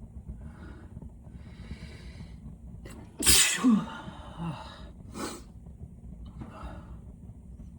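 A man with a heavy cold sneezing once, loudly, about three seconds in, after a couple of catching inhales, followed by breathy exhales.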